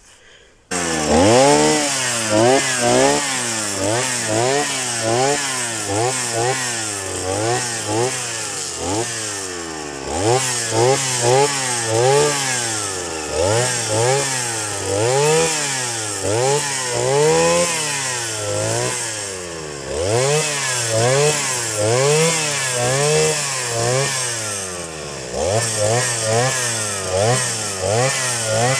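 Brush cutter engine cutting grass, coming in abruptly about a second in, then revving up and down over and over as the throttle is worked.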